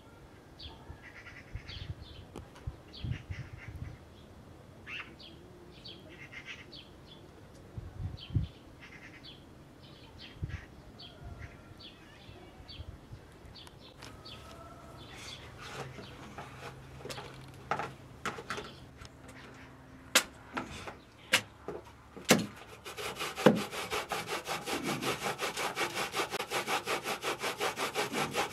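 Birds chirping faintly for the first half. Then several sharp knocks of a steel cleaver chopping fish on a wooden stump. Near the end, steady rapid rasping of a metal box grater.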